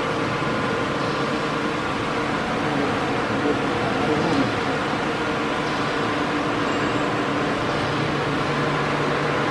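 Reverse-twist hexagonal wire mesh weaving machine running: a steady mechanical noise with a low hum underneath.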